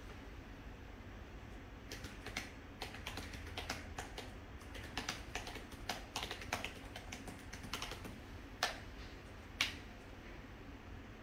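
Typing on a laptop keyboard: an uneven run of quick key clicks starting about two seconds in, with two louder single clicks near the end.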